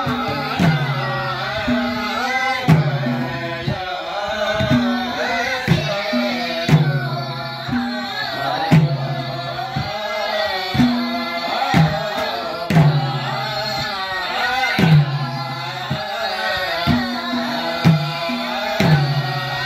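Madal hand drums, Nepali double-headed barrel drums, played in a steady repeating rhythm, their deep pitched strokes under men and women singing a Gurung (Tamu) ritual song.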